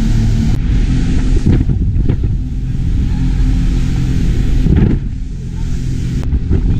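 Speedboat engines running at speed, a steady low drone over the rush of water and wind, easing briefly about five seconds in.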